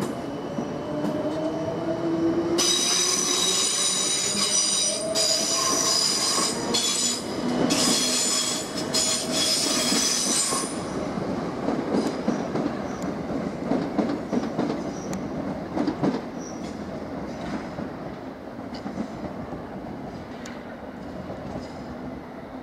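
South West Trains Class 455 electric multiple unit moving through the station, its wheels squealing high and shrill for about eight seconds from a few seconds in. After that the squeal stops and the train rumbles on over the track, slowly growing quieter.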